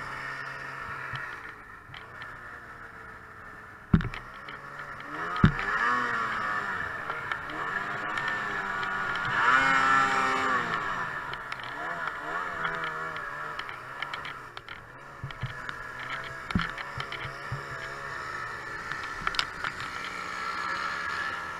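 Ski-Doo Summit 600 snowmobile's two-stroke twin engine revving up and down under load in deep powder, peaking loudest about halfway through. Two sharp knocks stand out, about four and five and a half seconds in.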